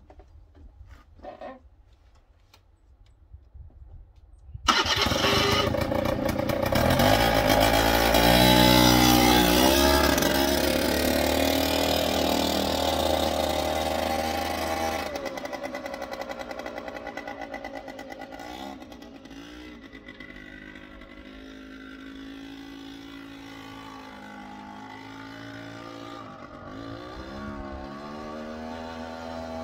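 Suzuki LT80 quad's small two-stroke single-cylinder engine starting up suddenly about four seconds in and revving as the quad pulls away. It fades as it moves off, then grows louder again with more revving near the end as it comes back.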